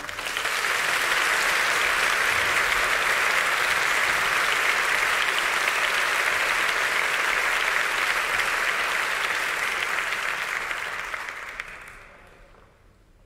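Audience applauding, steady for about ten seconds, then dying away near the end.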